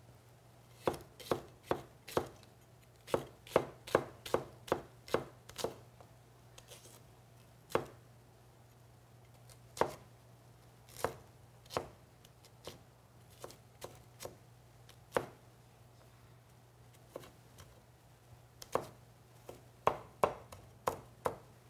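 Chinese cleaver knocking on a wooden cutting board as it slices scallion whites into thin shreds. The strokes come in a quick run of about two a second over the first few seconds, thin out to scattered single cuts, then pick up again near the end.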